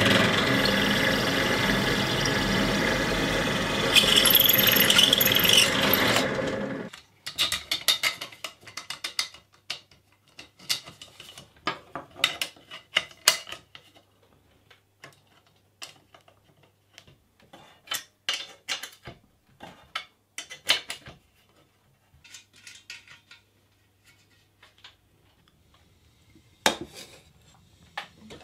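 Bench drill press running and drilling through square aluminium tubing, stopping abruptly about seven seconds in. After that come scattered small metallic clicks and taps as a bracket, bolt and washer are fitted to the tubing by hand.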